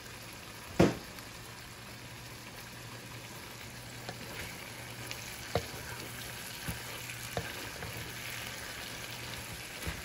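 Whole shrimp sizzling in garlic butter in a nonstick frying pan, stirred with a wooden spatula. One sharp knock of the spatula on the pan about a second in, then a few lighter taps and scrapes as they are turned.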